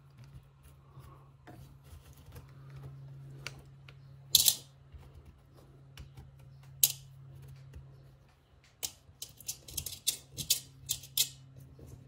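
Small plastic and metal parts of a Kyosho Fazer MK2 RC car's drivetrain clicking and snapping as they are pried loose and handled. There are two sharp snaps about four and seven seconds in, then a quick run of light clicks near the end, over a low steady hum.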